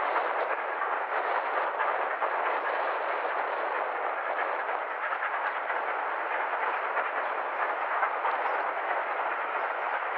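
LMS Royal Scot Class 4-6-0 steam locomotive working a passenger train across a viaduct: a steady, dense rushing clatter of exhaust and wheels, with no separate chuffs standing out.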